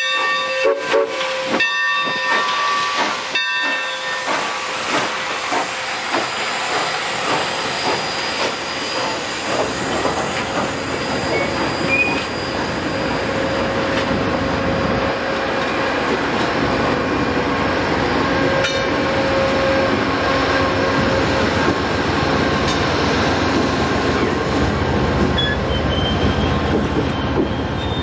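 Santa Fe 3751, a 4-8-4 steam locomotive, sounding its chime whistle in several short blasts in the first few seconds as it passes. Then its train of diesel units and passenger cars rolls by steadily, with wheels running on the rails.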